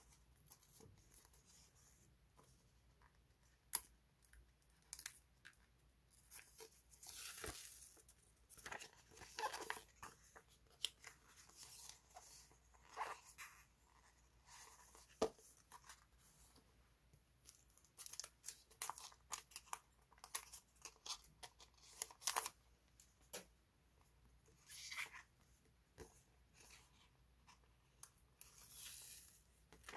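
Faint paper sounds of sticker sheets being handled: sheets rustling and sliding against each other and stickers peeled off their backing, with scattered soft taps and crinkles.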